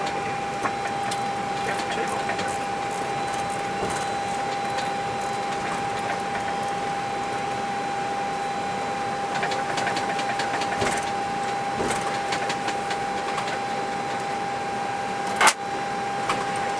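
Steady flight-deck noise of an Airbus A321 taxiing: a constant hiss with a steady whine-like tone, faint scattered clicks and rattles, and one sharp knock about a second before the end.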